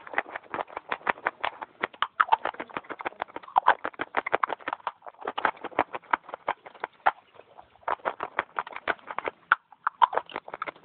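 Dry clay being bitten and chewed close to a microphone: fast runs of crisp crunching cracks, broken by a few short pauses.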